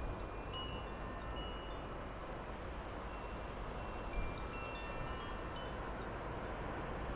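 Wind chimes ringing lightly, single clear notes scattered through, over a steady low outdoor rumble of wind.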